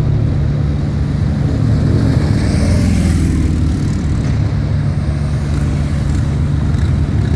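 Motorcade vehicles, a police motorcycle and a police SUV, driving past on a city street over a steady low engine drone. The passing-vehicle noise swells about two to three seconds in.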